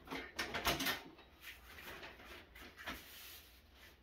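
Plastic seed tray being handled and shifted on a wire shelf: a few short knocks and rustles in the first second, quieter rubbing, then one more click near three seconds.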